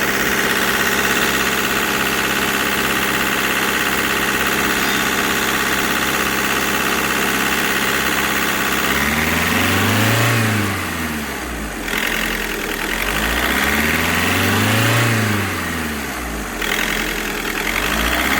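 Volkswagen Vento turbo-diesel engine running at a steady raised speed; from about nine seconds in its revs rise and fall on their own in slow surges, about every four to five seconds. The idle is hunting and settling by itself during an injector-knocking treatment.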